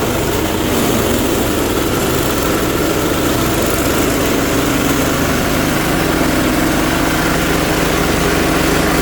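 Engine-driven chopper-grinder machine running under load, grinding dry coconut through a 12 mm screen. It is a steady loud engine drone with rough grinding noise on top, rising slightly as it starts.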